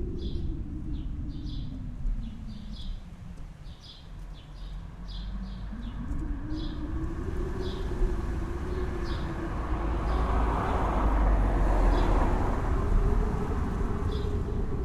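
Small birds chirping in short, repeated calls over a constant low rumble that dips and rises in pitch and grows louder in the second half.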